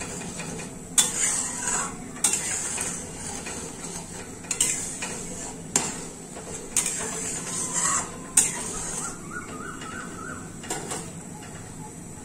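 Metal spatula stirring boiling milk in a metal kadai, knocking and scraping against the pan about once a second over the steady hiss of the bubbling milk, which is being reduced on a medium flame. The stirring stops near the end.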